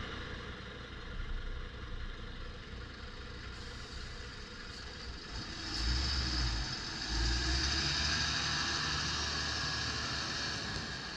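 2006 Volvo FE320 6x4 dump truck's diesel engine driving past and accelerating. It grows louder about six seconds in, dips briefly about a second later, then pulls on loudly with rising pitch.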